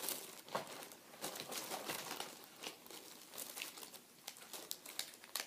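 Tissue paper rustling and crinkling in irregular crackles as a hand rummages through a box.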